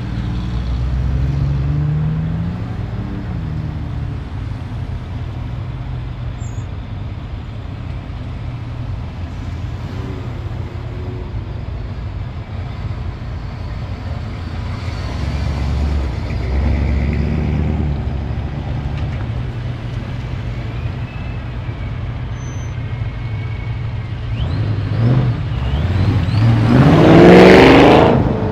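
Engines of classic and custom cars idling and rolling past slowly in a steady low rumble. Near the end a late-model Ford Mustang convertible passes close, its engine getting louder and rising in pitch as it accelerates by.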